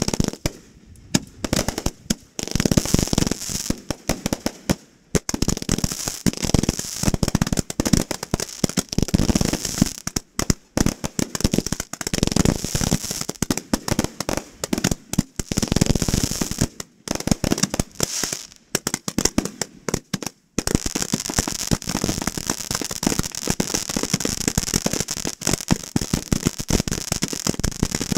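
Fireworks going off at close range: a rapid, dense run of bangs and crackling, with short lulls, turning into an unbroken crackle for the last third.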